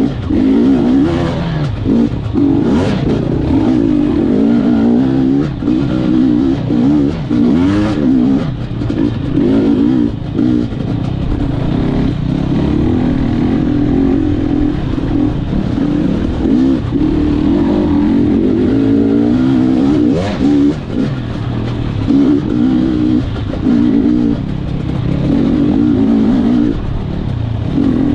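Gas Gas EC 250 two-stroke enduro motorcycle engine, heard on the bike as it is ridden, its revs rising and falling constantly with the throttle and dipping briefly now and then over rough ground.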